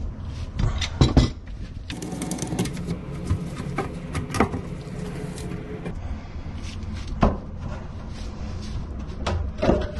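Plastic PVC sink drain pipes being unscrewed and handled inside a sink cabinet: scraping and rattling with a few sharp knocks, the loudest about a second in and again about seven seconds in, over a steady low hum.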